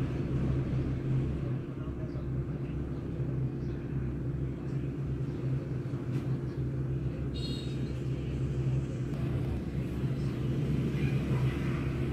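A steady low mechanical hum with a rumble beneath it, like a motor or fan running, and a brief high-pitched sound about seven seconds in.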